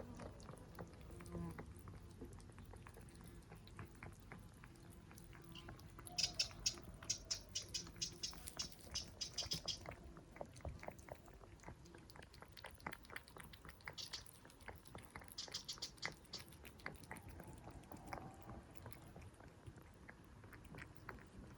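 Feral cats eating, a quiet run of small crisp crunching clicks that grows busiest from about six to ten seconds in and again around sixteen seconds.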